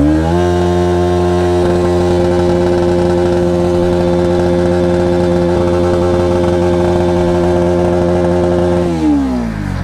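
Motorcycle engine revved up and held at high, steady revs while pushing through a water crossing, the pitch dropping as the throttle is closed near the end.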